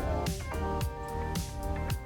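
Background music with a steady beat: held instrumental notes over a bass line, with a drum hit about every half second.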